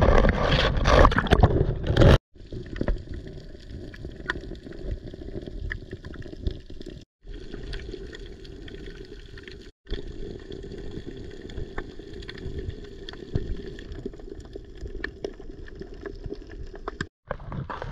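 Sea water sloshing and gurgling, muffled, with a louder rushing splash in the first two seconds; the sound breaks off abruptly several times.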